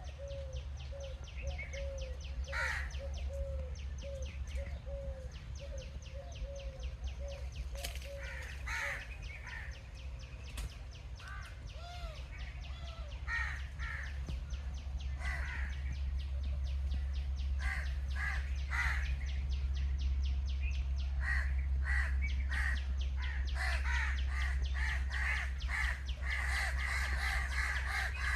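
Crows cawing repeatedly, more often in the second half, with a run of short, evenly repeated lower bird notes in the first few seconds. A fast, even high-pitched ticking and a steady low rumble run underneath.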